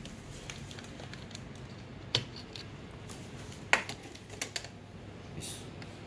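Handling noise: a few sharp clicks and taps, the loudest two about two seconds and three and a half seconds in, with smaller ticks shortly after, over a low steady background.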